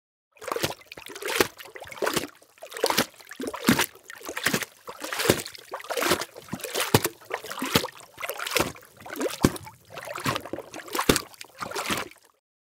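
Water sloshing and splashing in a steady rhythm, about one surge every three-quarters of a second, starting shortly after a moment of silence and stopping just before the end.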